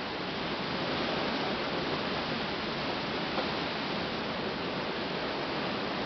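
Gusty wind rushing through trees, a steady noise of stirring leaves and branches that swells slightly now and then.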